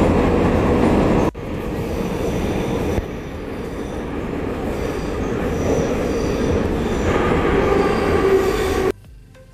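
Tbilisi Metro train car running, a loud steady rumble with faint high wheel squeals, broken by a sudden dip about a second in. Near the end the rumble cuts off abruptly and quiet background music takes over.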